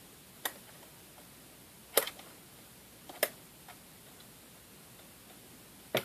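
Hard plastic toy playset parts clicking as a small hinged door is worked open: four sharp, separate clicks, the loudest about two seconds in and another near the end.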